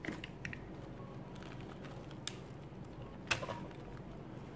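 Light clicks and rustling from hands handling a stapled strip of folded fabric petals, with one sharper click about three seconds in.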